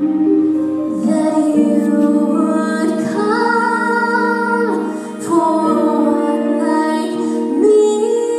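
Music: a woman singing a slow melody of long held notes, sliding between pitches, over a sustained accompaniment.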